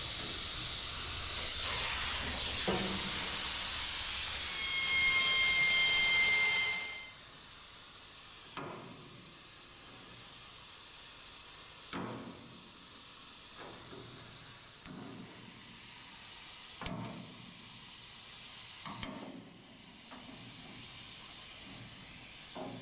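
Compressed-air tool hissing loudly on the quarter panel's spot-welded seam for about seven seconds, a steady whistle coming in near the end before it cuts off. After that come scattered sharp metal knocks and taps as the old quarter-panel metal is worked off the spot welds.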